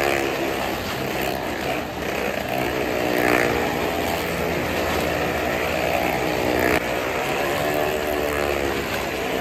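Motorcycle engine running hard as the bike circles the wooden wall of a well-of-death drum, its note rising and falling in slow waves as it sweeps round, with the plank walls rumbling under the tyres.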